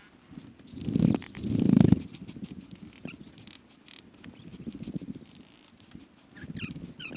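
Scattered sharp pops of paintball markers firing across the field, with several loud low rumbles on the helmet camera's microphone, the loudest about one to two seconds in.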